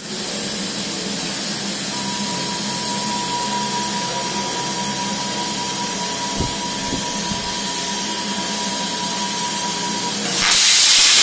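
Portable CNC plasma cutter hissing steadily with air, with a thin steady high tone running through most of it. Near the end the hiss jumps louder and harsher as the plasma arc strikes and starts piercing the steel plate.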